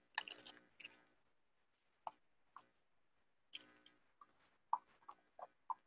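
Faint rustling and scattered light clicks as gloved hands close a small cardboard toy box and handle the toy car, with a brief run of rustles at the start and single ticks after.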